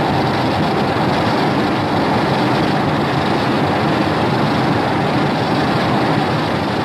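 Showa-era Godzilla film sound effect: a loud, steady rushing rumble with no clear pitch.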